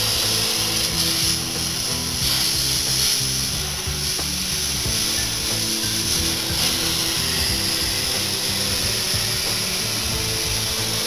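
Compressed-air-fed oxyhydrogen (HHO) torch flame hissing loudly and steadily as it cuts into thin steel plate.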